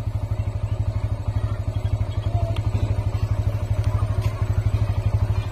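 Motorcycle engine idling: a steady, rapid putter of even exhaust pulses.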